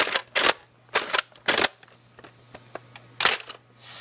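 Nerf dart blaster firing: six short, sharp shots, a quick run of five and then one more near the end.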